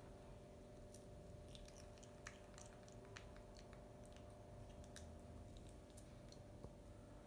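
Faint chewing of a baby monkey eating lotus seeds: scattered small clicks and crunches over a low steady hum.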